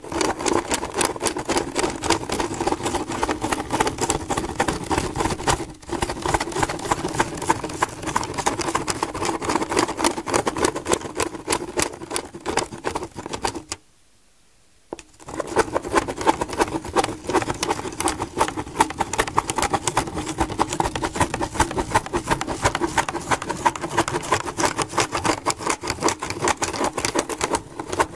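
A plastic Spirograph gear wheel driven around a toothed ring with a pen through it: its teeth meshing make a fast, steady clicking rattle, along with the pen tip scratching on paper. It stops for about a second midway and then starts again.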